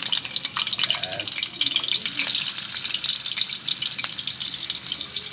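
Bitter melon slices frying in hot oil in a wok: a steady crackling sizzle.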